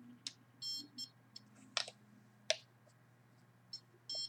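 Handheld signal detector going off in short, high-pitched buzzy chirps: one about two-thirds of a second in, another just after a second, and one near the end. Sharp clicks fall between them, the loudest about two and a half seconds in.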